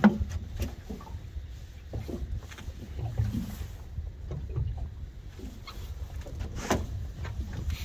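Scattered knocks and thumps of a freshly landed fish in a landing net on the floor of a small boat, over a steady low rumble of wind and water.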